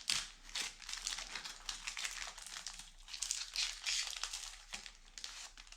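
Foil wrapper of a Lorcana trading-card booster pack crinkling as it is opened and handled by hand, in irregular crackles.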